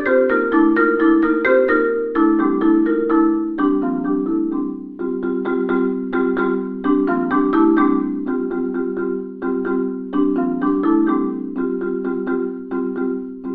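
Saito concert marimba played solo with four mallets: a quick, even stream of struck notes in the middle register, each ringing into the next, getting softer toward the end.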